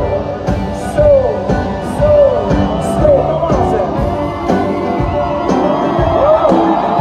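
Live band playing an easy-going pop-rock song on electric and acoustic guitars and a drum kit, with a steady beat.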